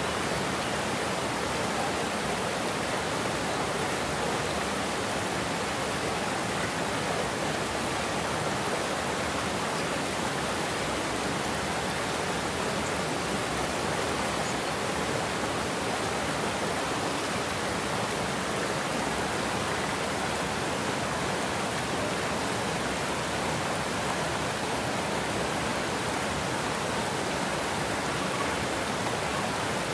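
Steady, even rush of water pouring over a low dam spillway into churning white water below.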